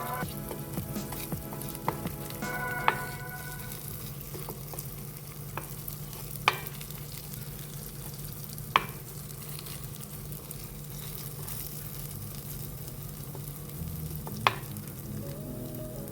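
A vegetable omelette frying in a pan, sizzling steadily, with a few sharp taps spread through, like a utensil knocking against the pan.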